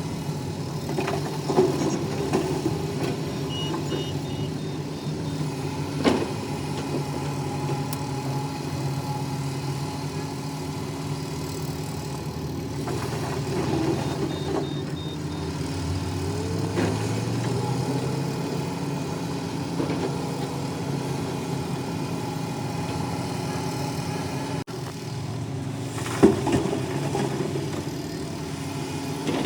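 Heavy diesel engine of earthmoving machinery running steadily, its pitch rising for a few seconds around the middle as it takes on load. Three sharp knocks stand out, the loudest near the end, and two short runs of faint electronic beeps sound.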